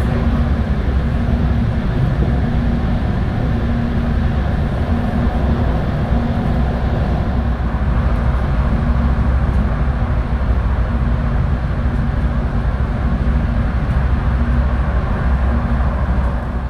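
Steady rumble of a vehicle running, with a faint low hum that comes and goes.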